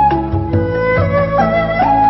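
Chinese traditional bamboo flute music: a flute plays a slow melody of long held notes that step up and down in pitch, over a lower accompaniment.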